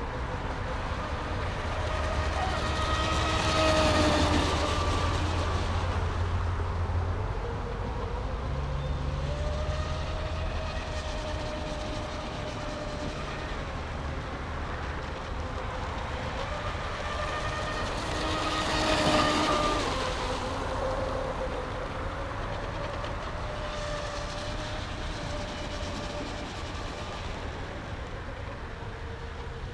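Pro Boat UL-19 RC hydroplane running laps at speed on 4S power: a steady electric motor whine with the hiss of the hull and spray. It swells twice as the boat sweeps past, about four seconds in and again just before twenty seconds, and the pitch drops after each pass.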